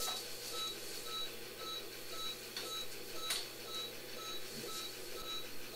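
Veterinary patient monitor beeping with the heartbeat, a short tone about twice a second, matching a heart rate near 112 per minute. A few faint clicks of surgical instruments.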